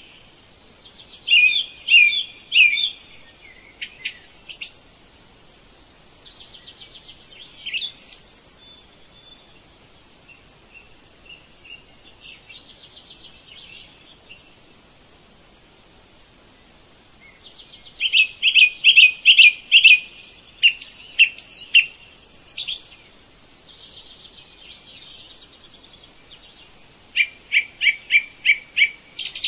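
Songbirds singing in short phrases of quick repeated high chirps and trills, with quieter stretches between them; the loudest bursts come past the middle and again near the end.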